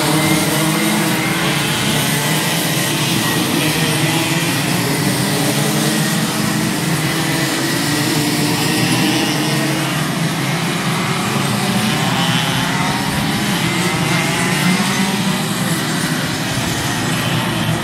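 A pack of 125cc two-stroke racing kart engines revving hard and easing off through the corners. Several engine pitches rise and fall over one another as the karts pass.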